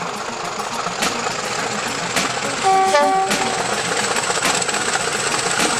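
British Rail Class 50 diesel locomotive approaching under power, its engine running steadily, with a short horn call about three seconds in.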